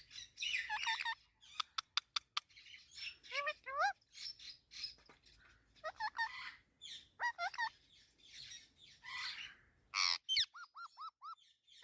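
Pet parrot chirping, squawking and whistling in a busy string of calls, with sliding whistled notes, a quick run of sharp clicks about two seconds in, and five short, evenly spaced whistles near the end.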